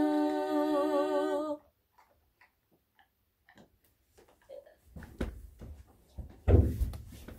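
Three women's voices holding the closing a cappella chord for about a second and a half, then cutting off together. After a short silence come faint rustles and clicks, then a few low thumps of someone moving on a sofa beside a dog, the loudest near the end.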